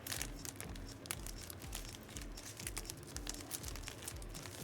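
Plastic card packaging crinkling and rustling in irregular little crackles as trading cards and packs are handled.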